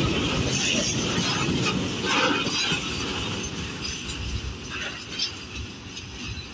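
Freight train's open wagons running over the rails as the end of the train passes and pulls away, the rumble fading steadily. A few sharp clanks come from the wagons.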